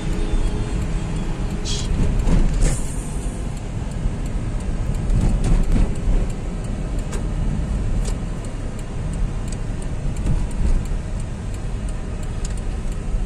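Car driving slowly, heard from inside the cabin: a steady low rumble of engine and tyres, swelling briefly about two seconds in.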